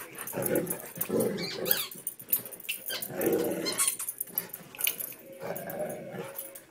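Two Labrador retrievers, a black dog and a yellow puppy, growling at each other in rough play, in irregular bursts with a short higher whine near the end.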